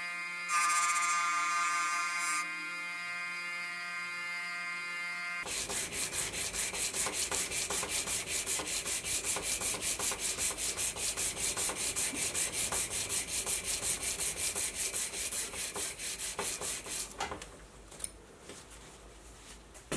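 A bench motor whines steadily as it spins a rubberized abrasive wheel cleaning scale off a hardened steel part. About five seconds in this gives way to hand sanding: the part is rubbed back and forth on abrasive paper in rhythmic strokes that turn quieter near the end.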